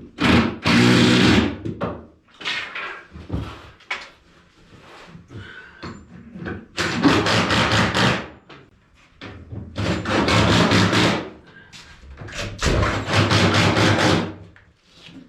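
Power drill run in four short bursts of a second or two, driving the bolts that tighten up a pool table's feet, with clicks and knocks of handling in between.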